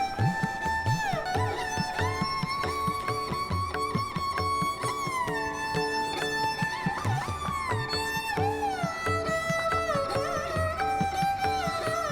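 Background music: a lead melody with sliding, bending notes over an evenly repeating accompaniment and a steady low beat.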